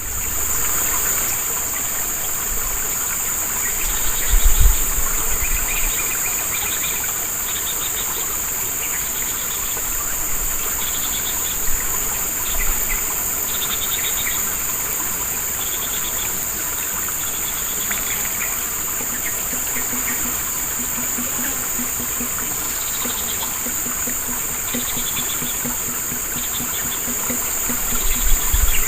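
Steady high-pitched trilling of crickets, with short bird chirps repeating throughout over the even rush of a small stream. Brief low rumbles come about four seconds in and again near the end.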